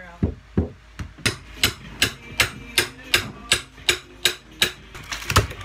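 Hand hammer striking in a steady rhythm, about three blows a second, while old floorboards are worked loose from the subfloor, with a quicker flurry of blows near the end.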